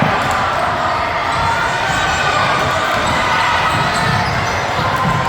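Basketball game in a gym: steady crowd and player chatter, with a basketball being dribbled on the court.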